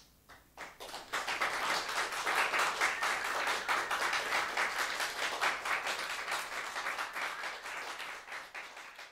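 Audience applauding: a few scattered claps at first, swelling within about a second into full applause, which thins out near the end.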